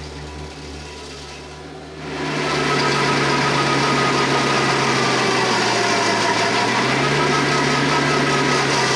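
Tractor engine running a PTO-driven stump grinder. It comes in loudly about two seconds in, as a steady engine drone with a high whine and a noisy haze over it.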